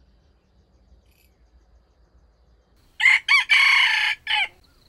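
Red junglefowl rooster crowing once, about three seconds in: two short notes, a long held note, then a short falling final note.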